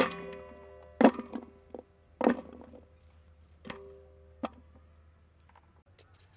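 Handfuls of cut green papaya cubes dropped into a large metal cooking pot: about five knocks a second or so apart, each setting the pot's metal ringing briefly, the first ring the longest.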